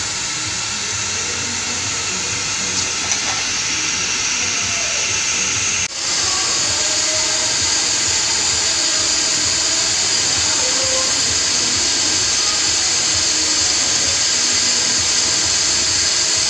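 Steady workshop machinery noise with a strong hiss, dropping out briefly about six seconds in and then carrying on a little louder.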